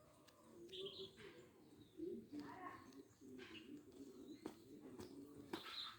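Faint, muffled sound played through a Micromax In 1b smartphone's loudspeaker, mostly low and uneven, with brief brighter touches.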